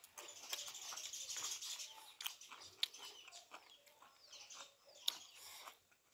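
Mouth sounds of eating rice by hand: chewing and wet lip smacking, with a few sharp clicks.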